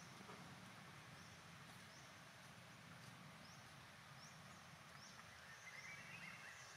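Near silence: faint outdoor ambience with a low hum and soft, high chirps repeating about once a second.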